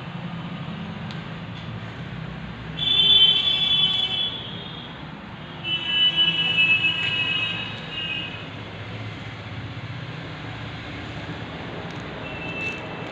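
Two long, high-pitched tones over a steady low hum. The first lasts about a second and a half and starts roughly three seconds in; the second is longer and starts about six seconds in.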